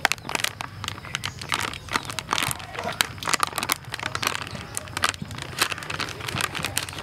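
Red plastic flour packet crinkling and crackling in a rapid, irregular run as it is shaken and squeezed to pour flour into a stainless steel bowl.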